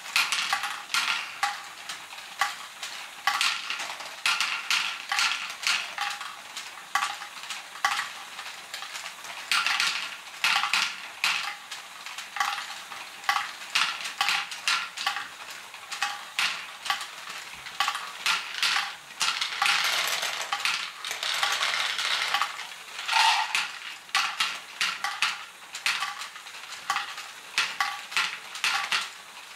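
Small plastic LEGO balls clattering and clicking through the motor-driven pump of a LEGO Great Ball Contraption, a dense, irregular rattle that swells louder at times.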